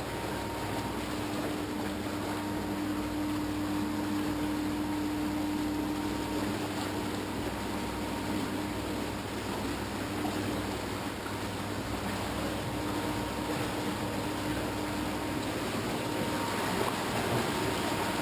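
Water rushing and churning around the vertical shaft of a low-head water turbine in its pit: a steady, even rush with a constant hum under it.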